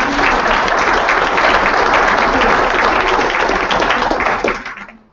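Audience applauding, a sustained round of many hands clapping that dies away near the end.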